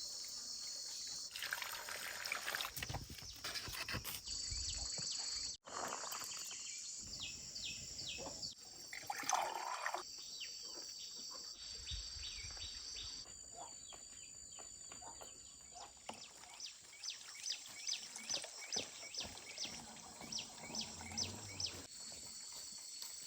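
Faint outdoor countryside ambience: a steady high insect drone with many short, high chirps, thickest in the second half, and the background changing abruptly several times.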